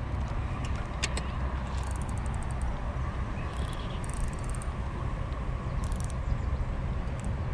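Steady low wind rumble on the microphone, with a few short bursts of rapid ticking from a spinning reel as its handle is cranked to take in line.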